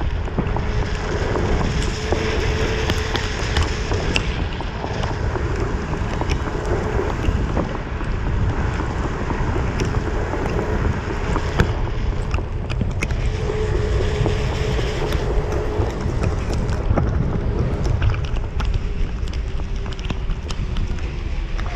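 Wind rushing and buffeting over an action camera's microphone as it moves along on a Onewheel electric board, mixed with tyre hiss on rain-wet pavement. A faint steady hum comes and goes, and there are a few short clicks.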